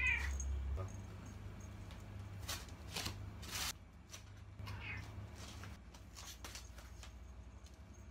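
Munchkin cat meowing twice: a short bending call at the start and another about five seconds in, with a few sharp clicks and rustles in between.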